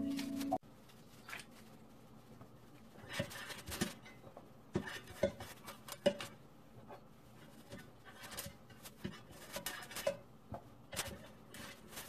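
Background music cuts off abruptly about half a second in. After it come irregular light taps, clicks and brief scrapes as a brush spreads oil inside a metal loaf pan, knocking and rubbing against the pan's sides and bottom.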